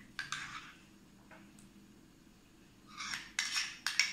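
Metal spoon scraping cream cheese from its wrapper into a glass bowl: one short scrape just after the start, then a quick run of scrapes and clinks in the last second.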